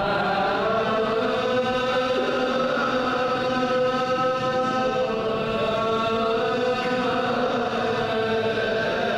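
Ge'ez liturgical chant: voices singing long, held notes, with a change of pitch about two seconds in.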